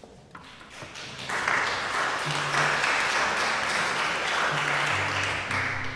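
Audience applause, starting about a second in, holding steady and stopping just before the end.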